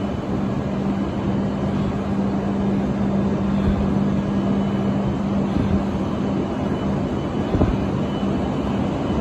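E5 series Shinkansen standing at the platform, its onboard equipment giving a steady hum with a low steady tone that fades out near the end. A couple of short knocks come shortly before.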